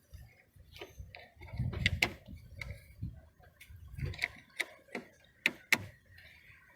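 Sharp, irregular clicks and taps, about seven of them, from hands working a pickup truck's rear door latch and handle cable, with low handling rumble in between.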